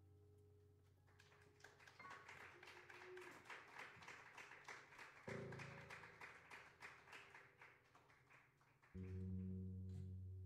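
Sparse, quiet improvised jazz: light percussion taps, about four a second, over a fading low bass note, with a short low note about halfway through. Near the end a loud sustained low bass note comes in.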